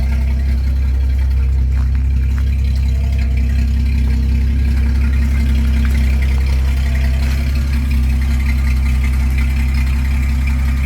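Dodge Slant 6 inline-six engine in a 1983 D150 pickup idling steadily after being brought back to life. It runs smoothly with no exhaust pipe or muffler connected.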